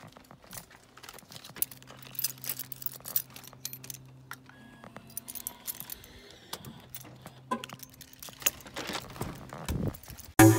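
A bunch of house keys jingling and clicking as the front door is unlocked, with the door handle worked near the end.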